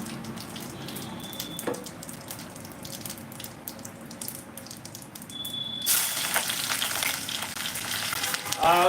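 Food frying in a pan, with a crackling sizzle of many small pops; about six seconds in the sizzle turns louder and fuller.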